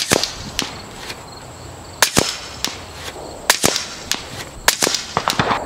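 A .25 calibre Kalibrgun Cricket PCP air rifle firing 36 grain slugs in a string of sharp, short cracks, several shots a second or two apart.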